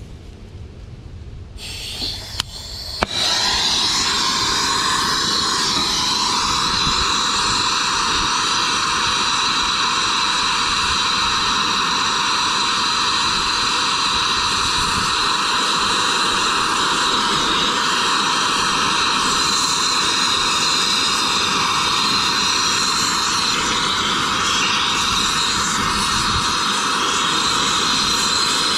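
TurboTorch catches about three seconds in and then burns with a steady rushing hiss as its flame heats the hub of a seized condenser fan blade, to expand the hub and free it from the motor shaft.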